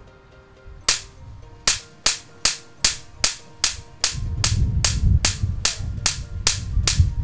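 High-voltage aircraft igniter plug sparking over and over with sharp, evenly spaced snaps, about two or three a second, starting about a second in. It has not yet lit the sprayed fuel. A low rumble joins underneath from about four seconds in.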